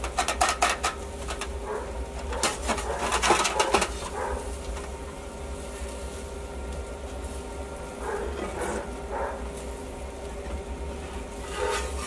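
Metal utensils clinking and scraping as grilled fish is lifted into a cast-iron skillet: a quick run of clicks and clatters at the start, another about two and a half seconds in, then quieter handling near the end, over a steady low hum.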